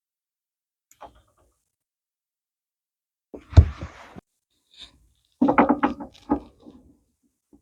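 Handling knocks and clicks of small parts being worked on the steering-column ignition lock: a faint click, a sharp knock about three and a half seconds in, then a quick run of knocks and clicks.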